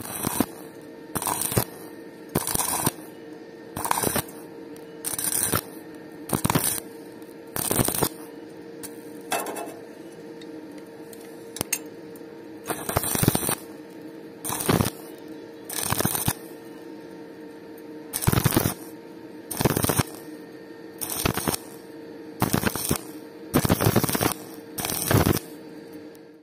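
Stick (SMAW) welding arc on a steel pipe joint, struck in short crackling bursts about every second and a bit, with a longer pause around ten seconds in. A steady hum runs underneath.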